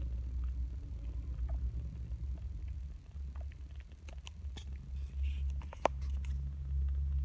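Mother cat purring as a steady low rumble while her kittens nurse. Small scattered clicks come in the second half, with one sharper click about six seconds in.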